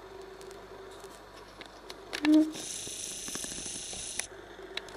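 Small camera zoom motor whirring for about a second and a half past the middle, over a faint steady fan hum, with a brief soft hummed voice sound just before the whir.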